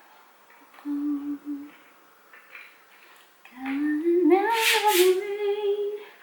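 A woman humming a tune to herself: a few short notes, then a louder, longer phrase rising in pitch in the second half.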